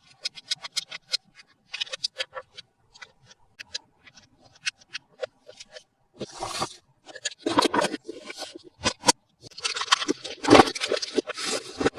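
Hands handling toy packaging during an unboxing: a scattered run of small clicks and taps, then from about halfway louder crinkling and scraping that grows denser toward the end.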